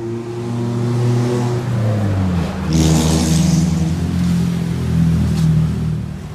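Motorcycle engine revving, its pitch dropping about two seconds in and then held at a steady higher note, with a short hiss about three seconds in.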